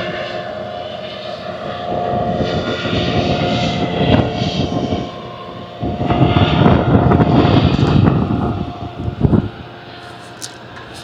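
A long freight train rumbling across a stone viaduct: a steady drone with wind gusting on the microphone in uneven surges. The sound drops away sharply about nine and a half seconds in.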